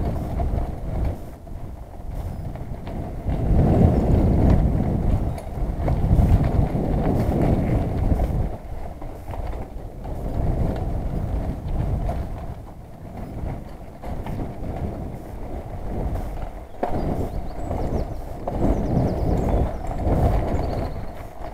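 Mountain bike rolling along a dirt forest singletrack: a low tyre rumble that rises and falls, with scattered rattles and knocks as the bike goes over bumps.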